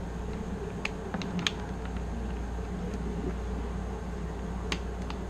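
A few sharp small plastic clicks and taps as the cover panel is handled and fitted onto a pair of Fatshark Dominator V3 FPV goggles, over a steady low hum.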